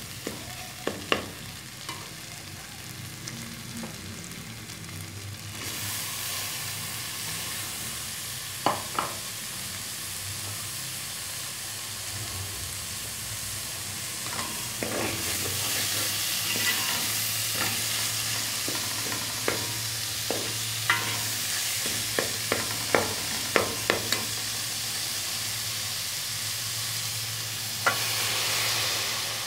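Onions frying in oil in an aluminium pot, with a metal spoon scraping and knocking against the pot as they are stirred. The sizzling gets louder about six seconds in, as chopped tomatoes join the onions, and swells again near the end when water is poured in.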